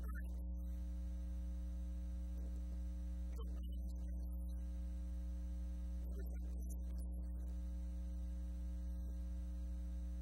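Steady electrical mains hum, a constant low buzz with fainter higher overtones, unchanging throughout.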